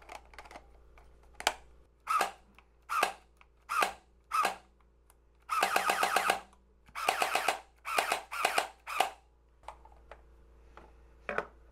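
Nerf Gelfire Mythic gel blaster's electric gearbox cycling as it fires. It fires single shots about a second apart, then two longer bursts of rapid fire near the middle, then a few more single shots. The rate of fire is slow because the battery is low.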